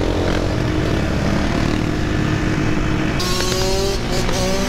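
Several dirt bike and quad engines running together with a steady drone and wind noise on the microphone. About three seconds in a louder hiss joins, and near the end an engine's pitch rises as it revs.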